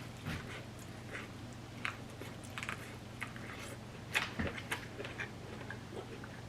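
Close-miked eating of blue crab: chewing, with irregular small cracks and clicks as the crab shell breaks, a cluster of them about four seconds in. A low steady hum runs underneath.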